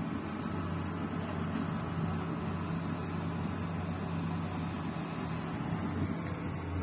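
Bulldozer's diesel engine running steadily with a low, even drone.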